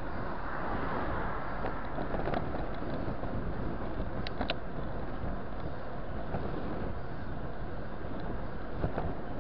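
Steady rush of wind and road noise from riding a bicycle along a city road with car traffic around. A few short clicks around the middle.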